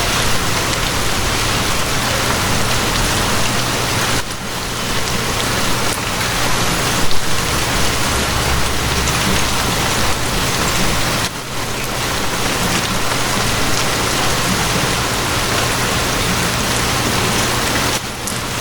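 Steady rain with a low, even hum of a train running underneath. The level dips briefly three times.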